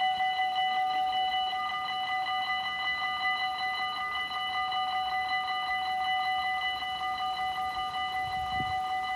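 Dutch level-crossing warning bell ringing in a rapid, even series of bright metallic tones, the signal that a train is approaching and the barriers are coming down.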